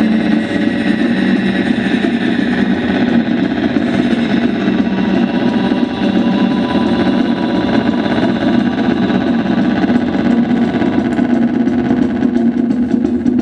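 Amplified electric guitar played as a steady wall of distorted, effects-laden noise, with no drumbeat.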